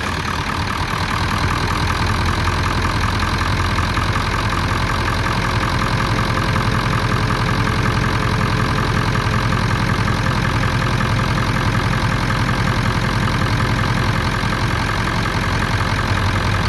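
Ford 7.3L Powerstroke V8 turbo-diesel idling steadily, freshly started after firing almost at once on cranking.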